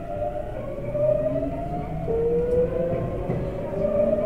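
Tokyu 7700-series electric train heard from the front cab while moving. The VVVF inverter traction motors whine in several tones that climb slowly in pitch, with a new tone stepping in about two seconds in, as the train gathers speed. Rumbling running noise lies underneath.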